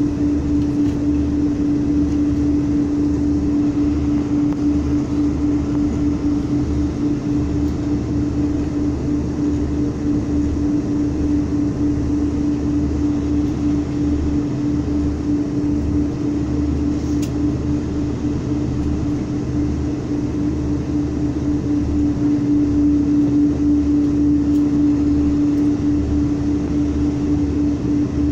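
Cabin noise inside a Boeing 747-400 taxiing: a steady drone with a constant hum and a low rumble that comes and goes.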